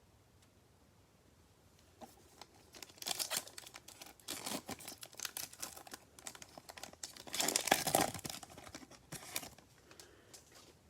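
A football trading-card pack's plastic wrapper being torn open and crinkled by hand, in irregular crackling bursts that begin about two seconds in and are loudest near the end.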